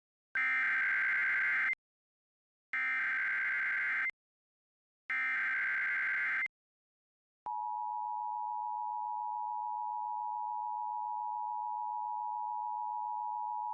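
Emergency Alert System broadcast: three bursts of SAME header data tones, each about a second and a half long with short silences between, encoding a Child Abduction Emergency (Amber Alert). About seven and a half seconds in, the steady two-tone attention signal (853 and 960 Hz) begins and holds.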